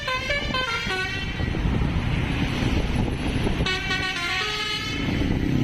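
Bus Basuri melodic horn playing a quick run of stepped notes that ends about a second in, then a second run of notes past the middle, with vehicle noise in between. A low steady tone comes in near the end.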